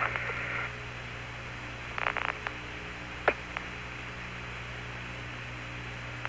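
Apollo 15 air-to-ground radio channel between transmissions: steady hiss and hum. A louder burst of hiss cuts off under a second in, a few crackles come about two seconds in, and a single sharp click follows a little after three seconds.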